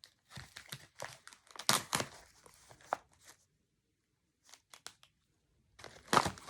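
A homemade paper-and-tape blind bag being ripped and crumpled by hand in short bursts, a gap of near silence in the middle, then a louder rip near the end.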